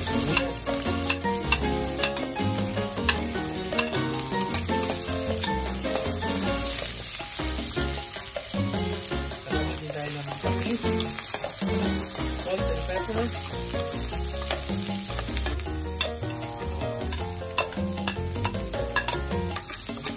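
Sliced onions sizzling in hot oil in a wok, stirred and scraped with a metal spoon, with occasional sharp clicks of the spoon against the pan.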